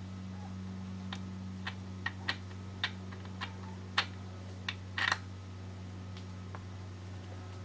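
About ten light, irregular clicks and taps over a few seconds, from a hand working at parts deep in an engine bay, over a steady low hum.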